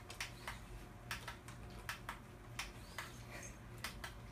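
Cats licking a paste treat from a tube, an irregular run of faint short wet clicks, several a second, over a low steady hum.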